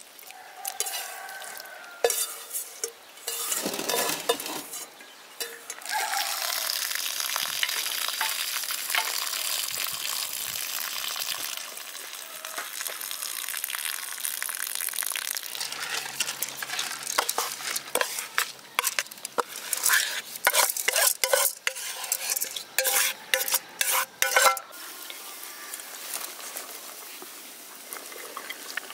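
Cooking sounds while rice pilaf is made: a steady hiss for several seconds, then a quick run of sharp scrapes and knocks of a utensil against a pan.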